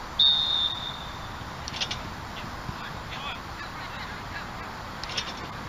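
A short, sharp whistle blast about a quarter of a second in, followed by a few faint clicks, over steady outdoor hiss.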